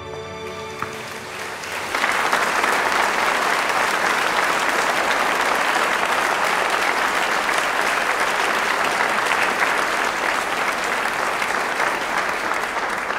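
An audience applauding. The clapping swells up about two seconds in and then holds steady as music fades out.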